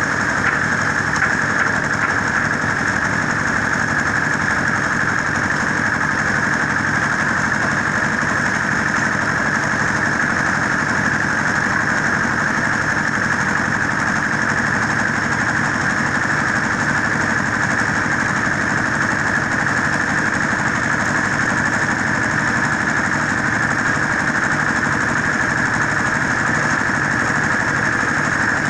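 Diesel engine running steadily, powering a concrete mixer/blender, with no change in speed.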